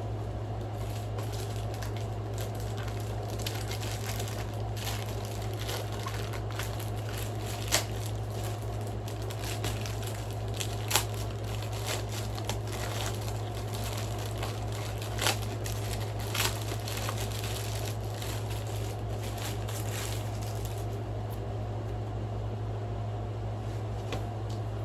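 Packaging being handled while unboxing: irregular crinkling and crackling with a few sharper clicks, over a steady low hum.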